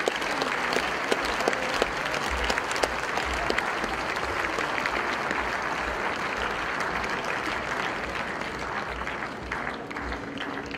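Audience applauding, a dense and steady clapping that eases slightly toward the end.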